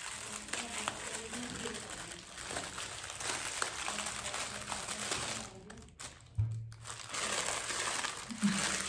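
Pink gift-wrapping paper crinkling and rustling as it is pulled open and crumpled by hand. The crinkling stops briefly around six seconds in, where there is a single low thump, then starts again.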